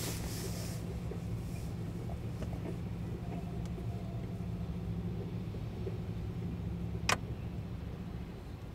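CSX freight train of covered hoppers and tank cars rolling slowly past: a steady low rumble with a single sharp knock about seven seconds in.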